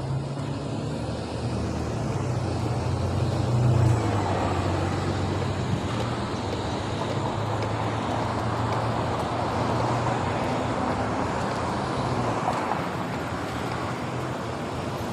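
Road traffic passing close by, cars and a bus: a steady low engine hum with tyre noise on the road, loudest about four seconds in.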